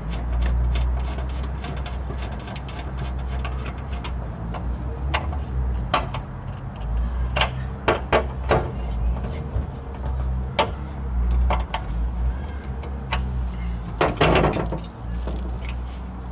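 Hand nut driver running nuts down onto threaded studs, with scattered sharp metal clicks and taps and a quick cluster of them near the end, over a steady low hum.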